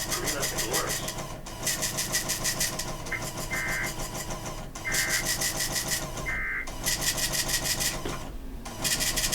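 Harsh, rapidly pulsing buzz with a steady tone near 2 kHz, from a NOAA Weather Radio broadcast feed, coming in bursts of one to three seconds with short breaks between them.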